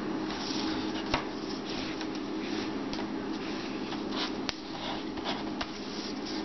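Micro cord being drawn through a paracord bracelet with a stitching needle: rustling and scraping of cord against cord, with a sharp click about a second in and another about four and a half seconds in, over a steady low hum.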